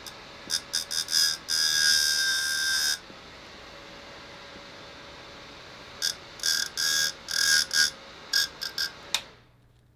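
A high-speed server fan running with a steady whoosh while a pen is poked into its spinning blades, giving loud buzzing chatter: a few short bursts, one longer stretch of about a second and a half, then a run of short bursts. Near the end the fan's whoosh dies away.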